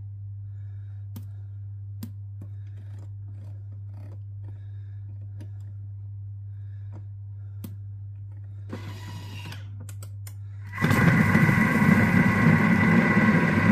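A low steady hum with faint clicks, then about eleven seconds in a Thermomix food processor starts up and mixes cake batter at speed 4: a loud steady motor whir with a held whine over it.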